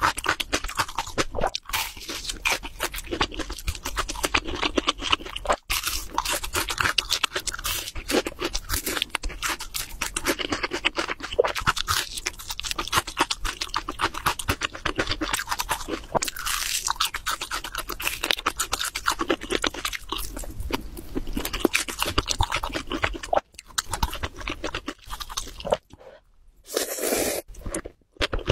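Close-miked chewing of crispy fried chicken: dense, crackly crunches bite after bite. Near the end comes a slurp of noodles.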